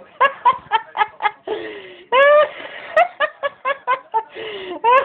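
High-pitched cackling laughter in rapid short bursts, about four or five a second, breaking twice into a rising squeal.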